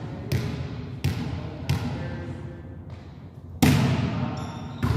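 Volleyball bounced on a gym floor three times, about two-thirds of a second apart, then struck hard by hand, the loudest hit, about three and a half seconds in, and hit again about a second later. Each impact echoes through the hall.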